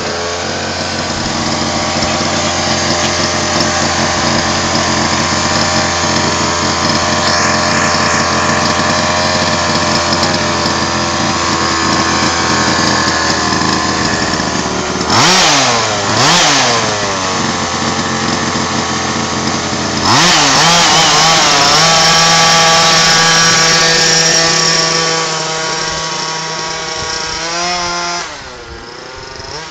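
FG 4WD RC buggy's small two-stroke petrol engine idling steadily, blipped twice about halfway through, then held at high revs for several seconds before the sound drops away near the end as the buggy runs off.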